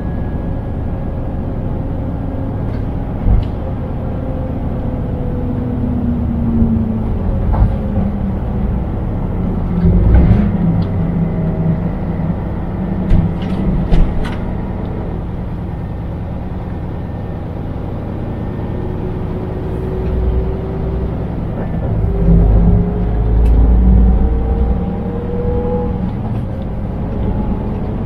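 Scania truck driving, its engine note sinking slowly in the first seconds and climbing steadily again later as the truck slows and then picks up speed, over constant road rumble. A few sharp knocks and clicks stand out along the way.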